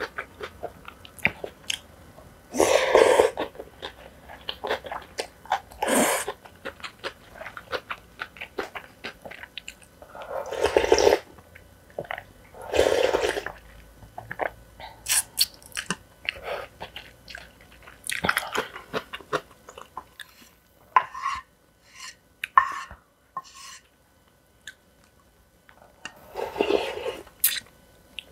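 Close-miked eating of spicy cold noodles: steady wet chewing with many small clicks, broken by about six louder, second-long slurps.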